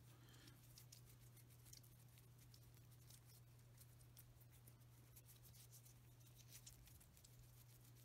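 Near silence: a faint steady low hum, with scattered faint light ticks of the two ceramic magnets being handled and turned in the hand.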